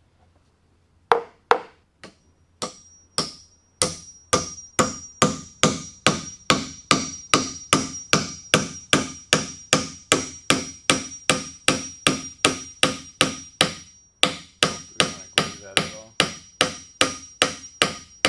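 Hammer driving an oak dowel peg into a drawbore mortise and tenon joint: a few spaced blows, then steady blows about two to three a second, with a short pause a few seconds before the end. The offset peg hole draws the tenon tight into the leg as it goes in. A thin high ring sounds under the blows.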